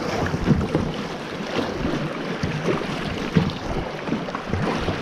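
River water splashing and rushing around a kayak, with wind noise on the microphone.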